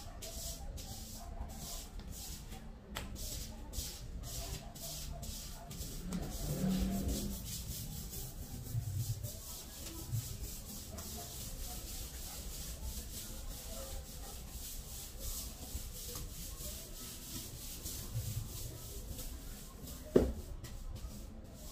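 Broom bristles sweeping a tile floor in repeated short strokes. A single sharp knock near the end is louder than the sweeping.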